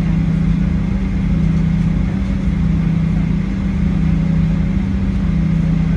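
Steady low drone of a Boeing 737-800's CFM56-7B engines and air system heard inside the passenger cabin, running evenly at low power on the ground before the takeoff roll.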